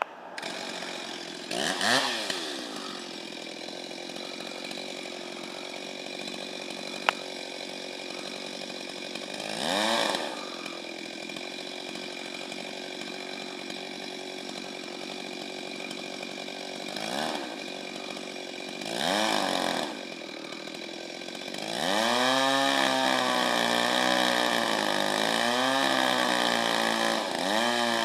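Chainsaw idling, blipped up to high revs and back four times. Near the end it is held at full throttle, the pitch wavering up and down as the engine labours under load, typical of the chain cutting into a trunk.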